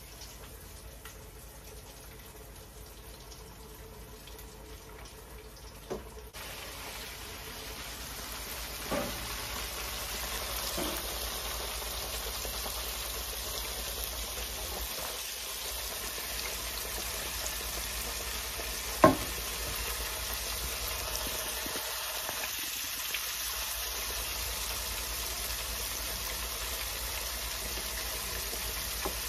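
Hot oil sizzling and bubbling in an electric deep fryer with onions and garlic frying in it. The sizzle rises about six seconds in and then runs steady, with a few short knocks, the sharpest about two-thirds of the way through.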